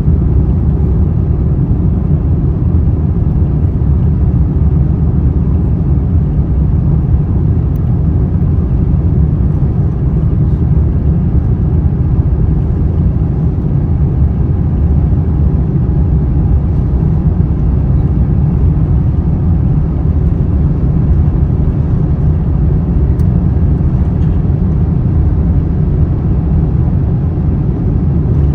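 Airbus A350-900 cabin noise during takeoff: its Rolls-Royce Trent XWB engines at takeoff power and the rushing air give a loud, steady low rumble.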